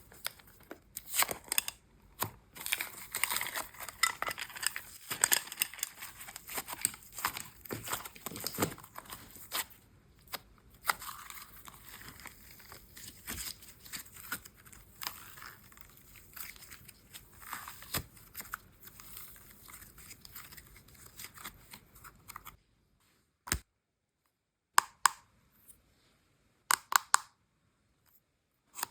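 Plastic packaging being crinkled and torn open by hand: a dense run of crackles, rips and clicks. It breaks off about three-quarters of the way through, and a few short separate crinkles follow near the end.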